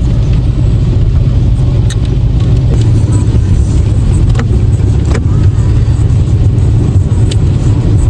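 Steady low road and engine rumble of a car in motion, heard from inside the cabin, with a few light clicks.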